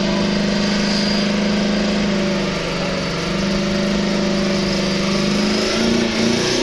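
Turbocharged V8 in a Volvo 142 held at steady revs through a burnout, with the rear tyres spinning; about five and a half seconds in, the revs start to rise and fall.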